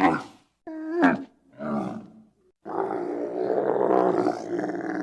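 Giraffe calling: three short calls in the first two seconds, the second rising then dropping in pitch, then a long, rougher call starting a little under three seconds in.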